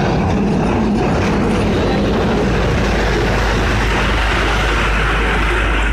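Miniature toy train running past close by: its locomotive's motor and the carriages rolling on the narrow-gauge track make a loud, steady rumble.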